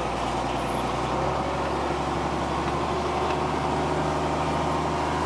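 Diesel engine of a farm vehicle running steadily under way, heard from inside its cab; the engine note shifts slightly about a second in.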